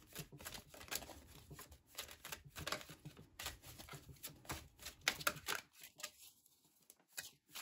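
A deck of tarot cards shuffled by hand: a run of soft, quick flicks of cards against cards that pauses for about a second and a half near the end.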